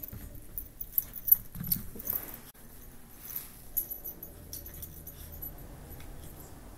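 Maltese puppy playing on a rug: a quick run of jingling clicks and scuffles, busiest in the first few seconds, with a short dog noise about two seconds in.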